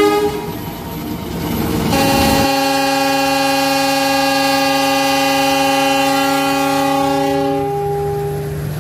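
Diesel locomotive's multi-note chime horn: a short toot over train running noise, then about two seconds in one long steady blast of several notes held for roughly six seconds, with the notes dropping out one after another near the end.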